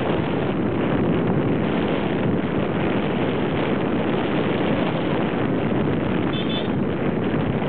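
Wind rushing over the microphone of a camera riding on a moving motorcycle, mixed with the bike's engine and road noise, steady throughout. A brief high chirp sounds about six and a half seconds in.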